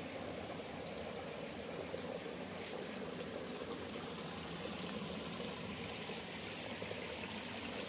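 Shallow stream water trickling and running steadily.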